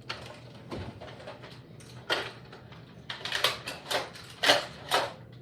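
Hard plastic clicks and clacks of a Nerf blaster being handled: a few scattered knocks, then a quick run of about ten clicks from about three seconds in.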